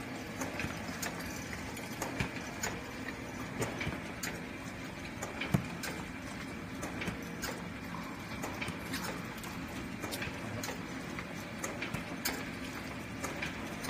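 Burger patty forming machine running: a steady mechanical hum with irregular clicks and clacks, and one sharper knock about five and a half seconds in.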